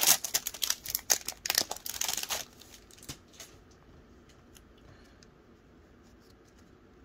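Foil wrapper of a Magic: The Gathering collector booster pack crinkling and tearing as it is pulled open by hand, for about two and a half seconds, followed by a few faint taps and then quiet.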